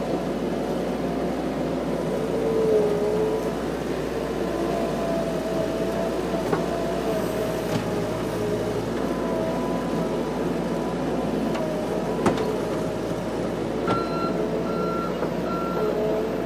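Bobcat 735 skid-steer loader running steadily under work, its engine whine wavering a little in pitch, with a single knock about twelve seconds in. Near the end its reversing alarm gives three short beeps.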